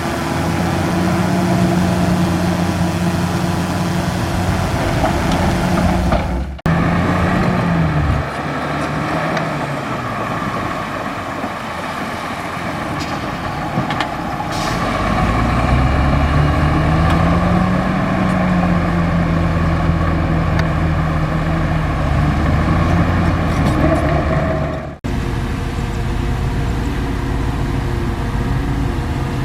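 Bulldozer's diesel engine running hard as it pushes dirt, its pitch rising and falling with the load. The sound breaks off abruptly and jumps twice, about a quarter and about five-sixths of the way through.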